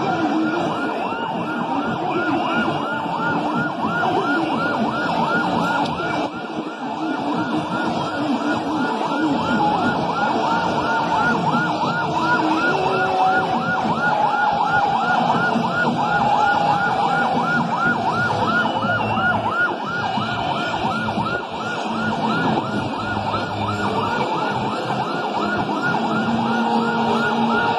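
Ambulance siren yelping in a fast, evenly repeating rise and fall, over the dense din of a large crowd.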